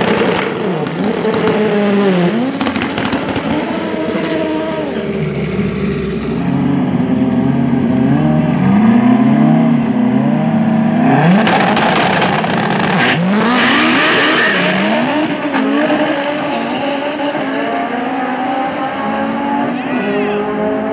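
Front-wheel-drive Honda Civic hatchback drag cars accelerating flat out, their engines climbing in pitch and dropping back at each gear shift. A loud, harsh burst of noise comes about eleven seconds in.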